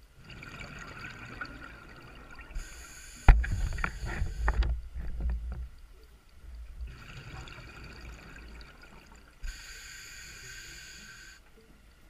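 A diver breathing underwater through a scuba regulator: a hissing inhalation, then a loud rush of bubbling exhaust about three seconds in, then another long hissing inhalation.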